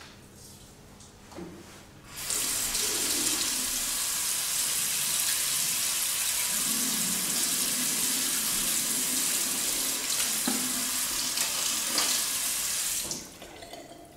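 Water running from a tap into a washbasin: a steady rush that starts abruptly about two seconds in and is shut off about a second before the end.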